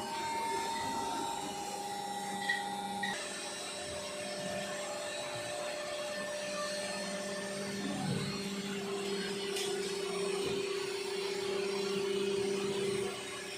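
Electric machinery running with a steady whine and hum. The sound changes abruptly about three seconds in, just after a short click.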